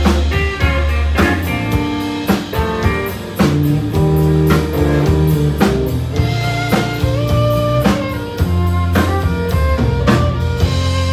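Live country band playing an instrumental intro: fiddle and guitars over a steady drum beat and low bass notes.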